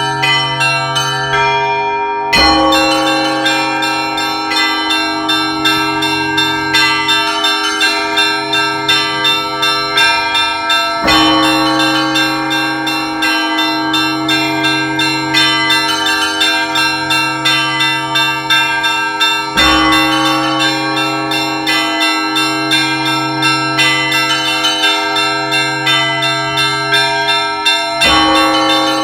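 Russian Orthodox church bells rung by hand from a bell tower. The large bell is struck four times, about every eight and a half seconds, and its low hum carries between strokes. Smaller bells chime quickly in between, about two to three strikes a second.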